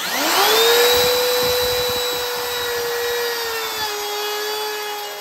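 Handheld electric router spinning up to a steady high whine and running as it routs a wooden board; its pitch drops slightly about four seconds in.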